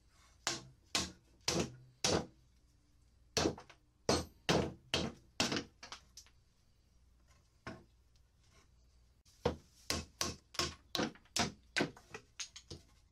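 Claw hammer knocking leftover slat stubs off wooden pallet rails: sharp wooden knocks in runs of blows, with pauses between the runs and a faster run near the end.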